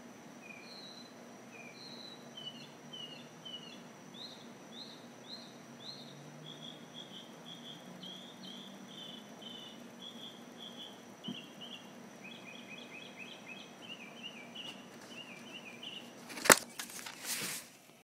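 Northern mockingbird singing at night: short whistled phrases, each repeated several times before the bird switches to a new one. A faint steady high whine runs behind it, and near the end there is one loud knock followed by a second of rustling.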